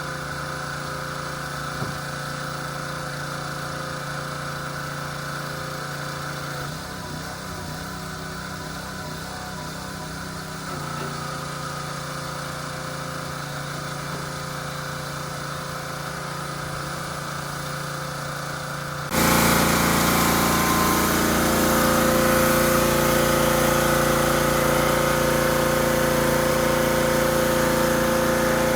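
A small engine running steadily at an even speed. About two-thirds of the way through, the sound suddenly becomes louder and fuller, then holds steady.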